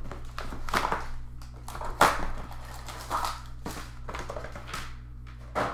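Rustling and knocking from trading card boxes and packaging being handled, a string of irregular crinkles and bumps with the loudest about two seconds in, over a steady low hum.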